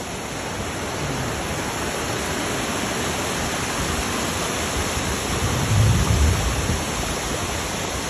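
Waterfall: a steady rush of falling water, with a brief low rumble about three quarters of the way through.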